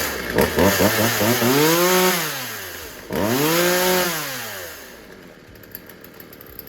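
Poulan Pro 42cc two-stroke chainsaw engine revved up twice, each time rising in pitch and falling back, then settling to a quieter idle about five seconds in. It now runs and revs the way it should after its low-speed carburetor mixture was richened a quarter turn.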